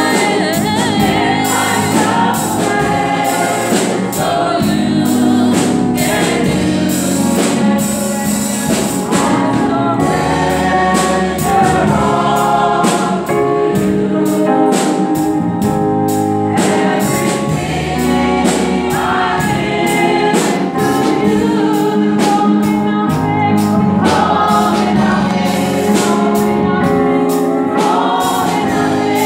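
Choir singing a gospel worship song, with sharp strikes keeping a beat under the voices.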